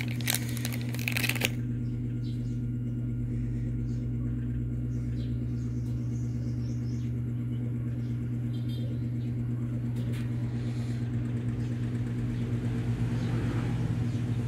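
A steady low machine hum that holds the same pitch throughout, with two brief rustles in the first second and a half.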